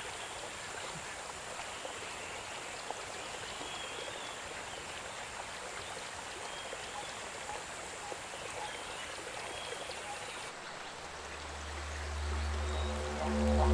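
Shallow forest stream rushing over rocks, a steady wash of running water. About ten seconds in, a low droning music tone comes in and swells louder toward the end.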